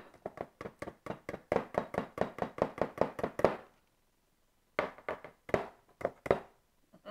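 Wire whisk beating a thick, heavy pudding and cream cheese mixture in a plastic mixing bowl, knocking in quick strokes about five or six times a second. The strokes stop briefly just under four seconds in, then about six more follow.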